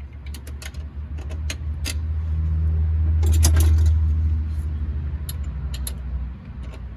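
Metal tools and parts clinking and rattling again and again, over a low bass rumble that swells up near the middle and then fades.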